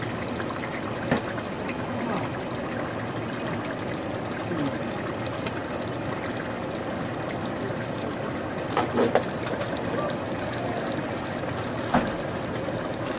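Pot of pondu (cassava leaves) with fish and meat boiling hard: a steady bubbling and seething. A few short knocks stand out, about a second in, twice near nine seconds and once near the end.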